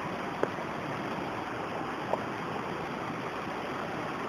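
Shallow rocky stream flowing steadily, an even watery rush, with two light clicks about half a second and about two seconds in.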